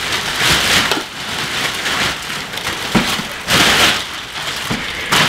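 Clear plastic wrapping being pulled and ripped off a folded golf push cart, crinkling and rustling in louder swells, with a few short knocks.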